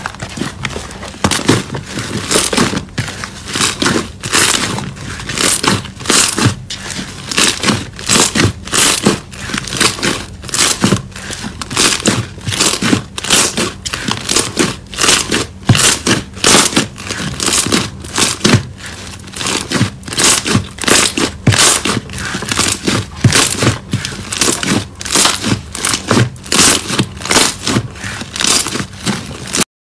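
Green fluffy slime squeezed and kneaded by hand, each press giving a loud crackle, about two a second.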